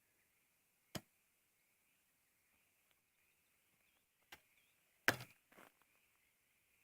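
A digging tool striking hard shale ground in four separate blows, the loudest about five seconds in. A faint steady high-pitched hum runs underneath.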